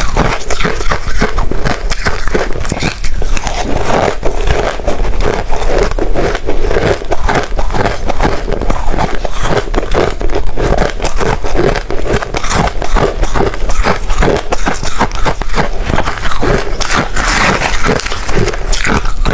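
Ice being chewed close to the microphone: a dense, continuous run of loud, irregular crunches and crackles.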